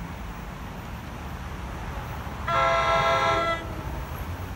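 Horn of an approaching commuter train: one blast of about a second, a chord of several steady notes, about two and a half seconds in, over a steady low rumble.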